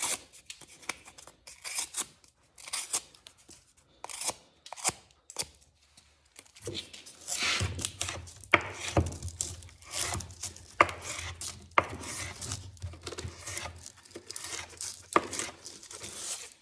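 A handmade 1075 steel knife slicing cardboard in repeated short, sharp cutting strokes. The cuts are sparse at first and come thick and fast from about seven seconds in.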